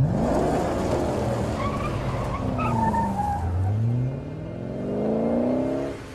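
Car engine revving hard as the car accelerates away. The revs climb at the start, drop back about two and a half seconds in, then climb steadily again before cutting off near the end.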